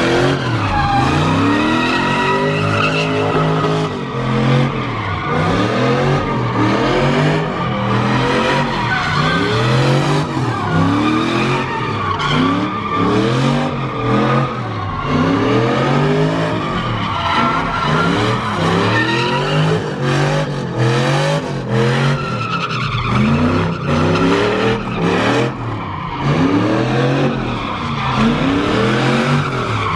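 Pickup truck doing donuts, its engine revving up and down over and over, about once a second, while the rear tyres screech on the asphalt.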